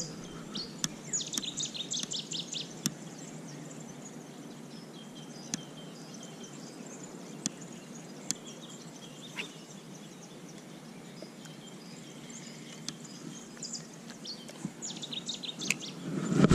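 Riverside ambience: small birds chirping in quick runs, about a second in and again near the end, over a faint steady background hum, with a few faint clicks.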